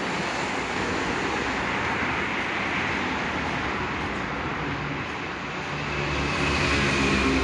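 Road traffic noise: a steady wash of passing vehicles, with a motor vehicle's engine hum growing louder near the end.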